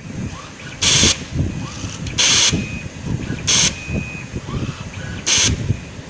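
Coaxial cable stripping machine working: a low, irregular mechanical clatter with four short, loud hisses, about one every second and a half. A brief thin whine follows two of the hisses.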